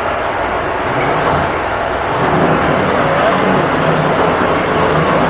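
Motorised meat grinder running steadily under load, mincing meat into ground meat; loud.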